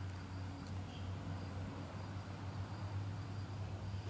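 Quiet outdoor background: insects chirping faintly and steadily over a constant low hum.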